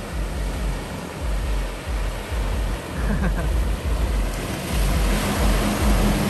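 Wind buffeting the microphone: a steady rushing noise with irregular low rumbles, growing louder over the last second or so.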